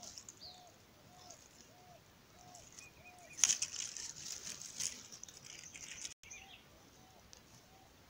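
A bird calling with a faint, evenly repeated arching note about twice a second. About three and a half seconds in comes a sudden sharp sound, then about a second and a half of rapid fluttering wingbeats, fitting eared doves (avoantes) taking flight.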